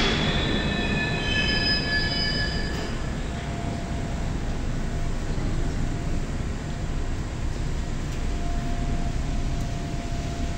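Moscow Metro train running through the station: several high-pitched wheel squeals for the first three seconds or so, over a steady low rumble that carries on throughout.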